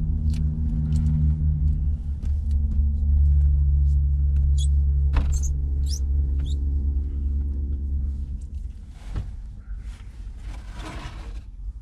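A vehicle engine idling with a steady low rumble and hum, which stops about eight and a half seconds in.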